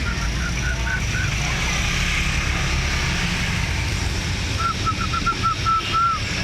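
Lovebird chirping: a quick run of short, clear chirps at the start and a longer run of about eight toward the end, over a steady low rumble.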